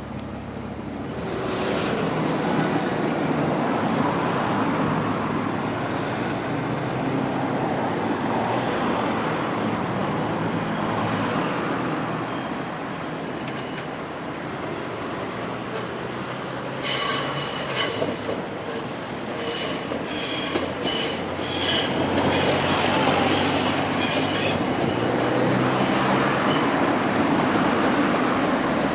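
A passenger train running along the track, with steady rail noise throughout. Its wheels squeal in a series of short, high-pitched bursts for several seconds past the middle.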